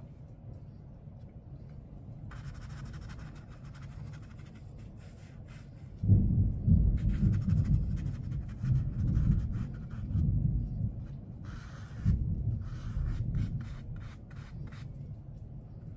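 Paintbrush rubbing and dabbing across wet watercolour paper in short scratchy strokes. About six seconds in a deep rumble of thunder rolls in and swells and fades for several seconds, louder than the brushing.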